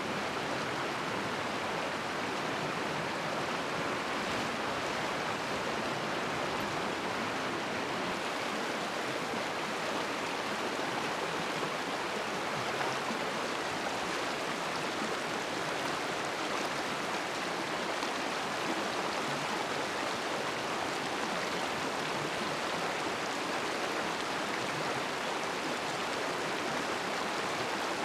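Steady rushing of a flowing stream, an even wash of water noise that stays level throughout.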